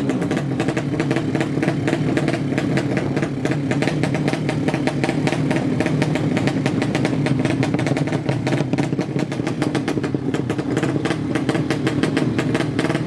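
Drag-race motorcycle engine running steadily at a fast idle, with rapid, even exhaust pulses. It eases slightly for a moment past the middle.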